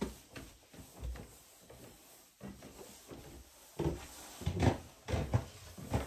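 Footsteps climbing wooden stairs: irregular dull thumps, a few in the first half, then louder and closer together in the second half.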